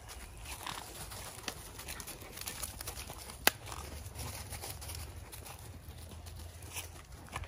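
Footsteps crunching and rustling through dry leaf litter, with one sharp click about three and a half seconds in.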